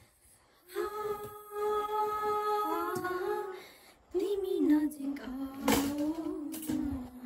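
A woman singing a slow melody unaccompanied in long held notes, with no clear words, in two phrases: one from about a second in and a second from about four seconds in. The singing is done with earphones in, so she cannot hear her own voice. A sharp click sounds in the middle of the second phrase.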